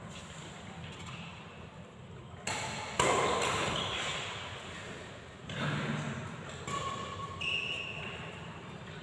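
Badminton rally in an echoing hall: rackets hitting the shuttlecock, with two sharp strikes about two and a half and three seconds in and another hit about five and a half seconds in, plus short high squeaks near the end.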